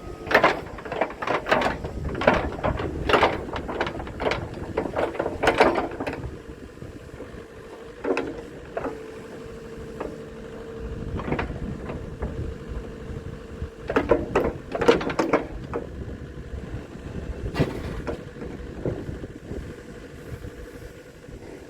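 JCB 85Z-1 midi excavator working: its engine runs under bursts of sharp metal clanks and knocks, in a thick cluster over the first six seconds and again about two thirds of the way through, with a steady whine holding through the middle.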